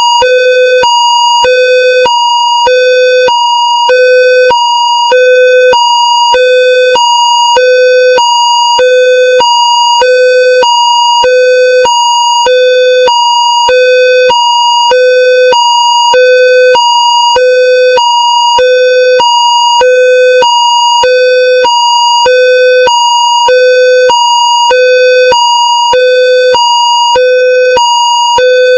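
Indonesian railroad level-crossing warning alarm sounding a steady high-low two-tone cycle, switching between a high tone and a tone an octave lower about every half second.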